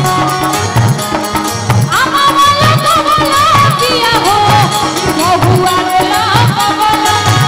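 Live Bhojpuri folk music: hand drums keep a steady rhythm under keyboard accompaniment, and about two seconds in a woman's voice starts singing an ornamented, bending melody.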